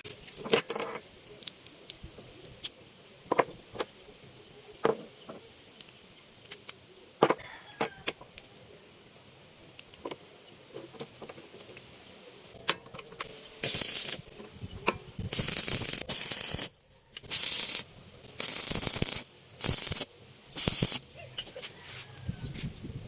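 Scattered metallic clicks and knocks of small workshop parts being handled. They are followed by about six short bursts of loud hissing noise, each starting and stopping abruptly.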